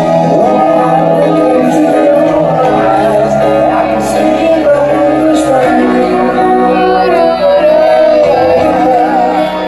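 Live rock ballad: male lead vocal sung over piano and a full band through a big PA, loud and continuous, heard from far back in a stadium crowd.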